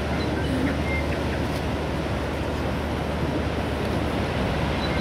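Steady engine noise of a tour boat, a constant low hum under an even rush of noise.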